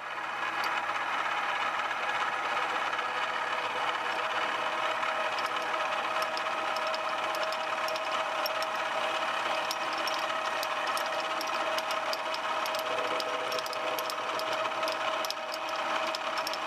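Mini milling machine running at a steady speed with a constant motor whine while a 3/8-inch four-flute end mill cuts aluminium round stock, with many small sharp ticks from the cut throughout.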